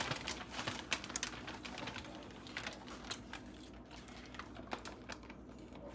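Light, irregular clicking and rustling, densest in the first second or two and then sparser: a hand sprinkling chopped green onions from a small plastic tub onto a foil pan of lasagna.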